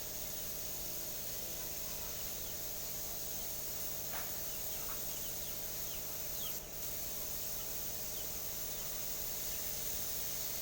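A steady low hum with hiss, with a few faint short bird chirps and a couple of light ticks in the middle.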